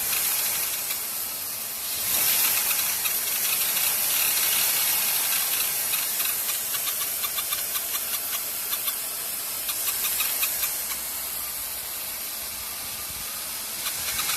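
2001 Mercury Sable engine revved a little above idle with the electric radiator fan running, rising in level about two seconds in, bringing a metallic, chirpy, chattering noise with a run of rapid ticks mid-way. The belt, idler pulley and tensioner are new and water on the belt does not change it, so the owner takes it for a metallic chirp, not belt noise.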